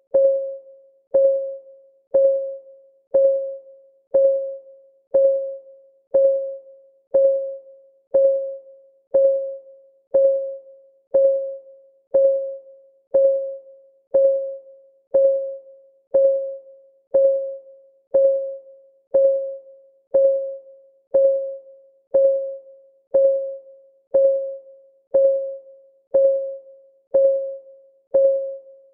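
Countdown timer's clock-ticking sound: one short, pitched tick every second, each fading away quickly, in a steady even rhythm.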